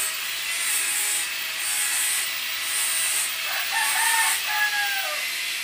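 A rooster crows once, starting about three and a half seconds in and falling in pitch at the end. Behind it, rhythmic rasping strokes come about once a second.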